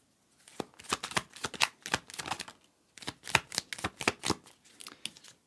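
A deck of tarot cards shuffled by hand: quick runs of crisp card snaps and riffles in two spells, with a brief pause between them.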